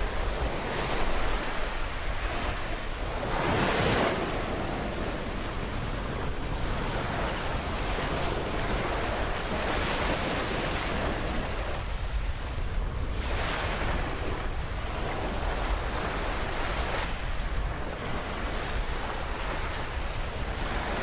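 Ocean surf washing onto a rocky beach, swelling and falling in repeated surges, the strongest about four seconds in, with wind buffeting the microphone.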